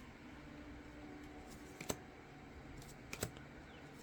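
Quiet handling of trading cards and booster packs, with two short crisp clicks about a second and a half apart.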